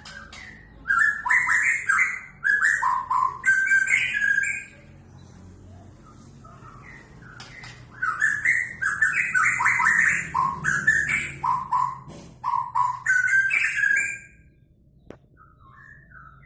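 White-rumped shama singing: two long loud phrases of rapid, varied whistled notes, the first about a second in and the second from about eight seconds in, with softer scattered notes between and after.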